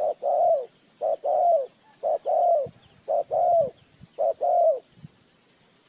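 Spotted dove cooing: five two-note phrases about a second apart, each a short coo followed by a longer coo that drops in pitch at its end.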